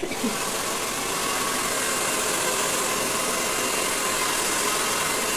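Handheld hair dryer running steadily, blowing air onto wet, freshly shampooed hair: an even, unbroken rush of air.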